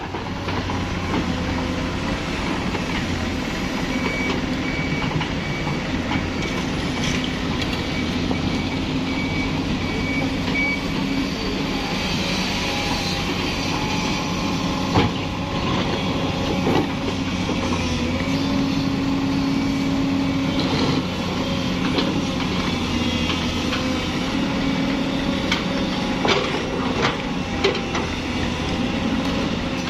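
Zoomlion ZE205E crawler excavator's diesel engine running steadily as the machine works its bucket, its note lifting for a couple of seconds around the middle. An evenly spaced high beeping sounds for several seconds in the first third, and a few sharp knocks come in the second half.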